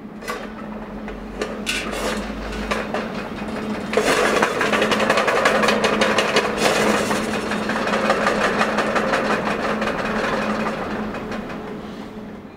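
Painted tin cans spinning on the installation's rods, a dense rattling of many small clicks over a steady low hum. It grows louder about four seconds in and fades out near the end.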